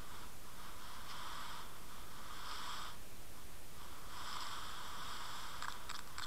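Hiss picked up by a submerged camera in its waterproof housing, swelling and fading every second or so, with a few sharp clicks near the end.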